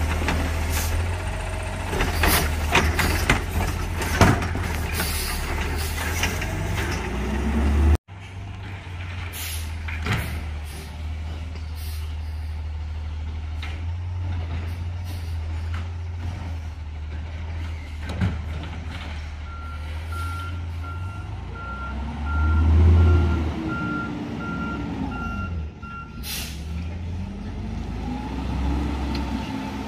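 Automated side-loader garbage truck at work: the diesel engine runs steadily under the knocks and clatter of carts being lifted and dumped. After a cut, the truck's backup alarm beeps evenly, about two beeps a second for some six seconds, while the engine revs up and settles.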